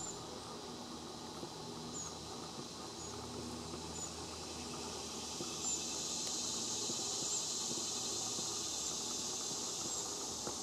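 Steady outdoor insect chorus, a high shrill hiss that swells slightly about halfway through. Faint, short, high chips come every second or two.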